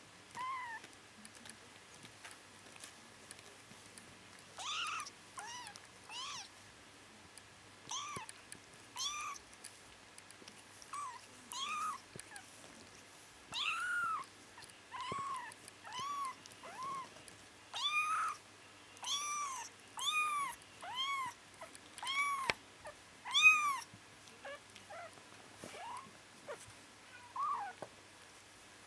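Bengal kittens mewing: a long run of short, high-pitched mews, each rising and falling in pitch. They come sparsely at first, then one or two a second through the middle, the loudest about two-thirds through, and thin out near the end.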